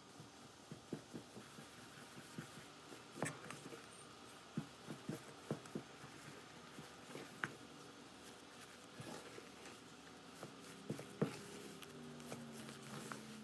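Spatula stirring thick, sticky cloud dough of whipped topping and cornstarch in a bowl: irregular soft taps and scrapes against the bowl, a few sharper clacks among them.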